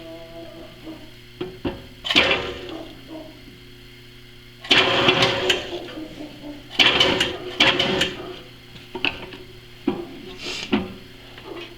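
Drill press running with a steady low hum, broken by several rough cutting bursts of about a second each as a center drill bores into a steel fixture.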